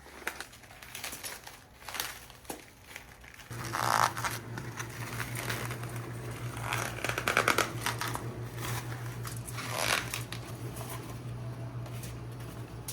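Rustling and crinkling handling noises, loudest in a few swells, over a steady low hum that comes in about three and a half seconds in.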